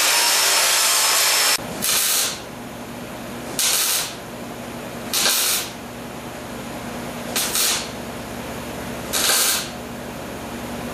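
Angle grinder cutting steel, which stops abruptly about a second and a half in. Then a welder making five short tack welds, each a half-second crackling burst about every one and a half to two seconds, with a steady hum between them.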